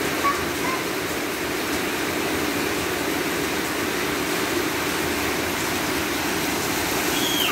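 Heavy tropical rain pouring steadily, a dense, even hiss of downpour.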